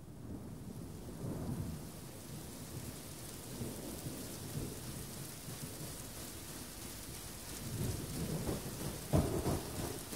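Thunderstorm: steady rain hiss with low rolling thunder underneath, swelling about a second in and rumbling loudest near the end.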